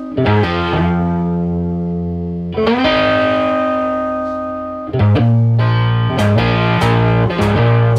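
Background music: a held chord rings out and a second one is struck about two and a half seconds in. From about five seconds in, a quicker pulsing rhythm with sharp percussive hits takes over.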